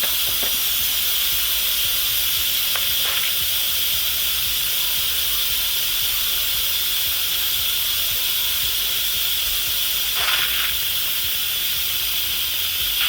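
Instant Pot Duo Gourmet electric pressure cooker venting steam through its opened release valve: a steady, strong hiss as the pressure left after a natural release is let off.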